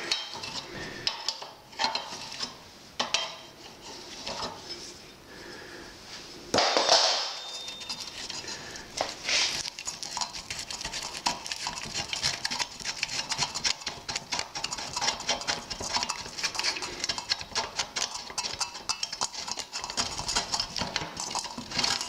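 A steel spanner clinking and clicking against the nuts and metal of a motorcycle's handlebar mounting as the handlebars are worked off. There is one louder metallic clank about a third of the way in, then a long run of quick, dense clicks.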